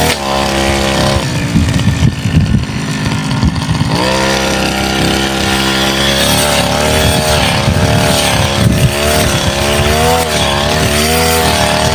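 Brush cutter's small engine running at high revs while cutting saplings and scrub, its pitch dipping and wavering as the blade takes load. Between about one and four seconds in the steady note gives way to rough, uneven noise.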